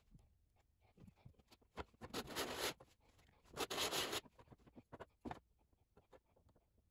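Small clicks and taps of 3D-printed parts and a glue bottle being handled on a workbench, with two short scratchy bursts about two and three and a half seconds in.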